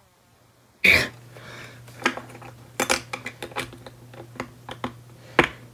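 LEGO plastic pieces being pulled apart and handled: a loud snap about a second in, then a run of small plastic clicks and clatters.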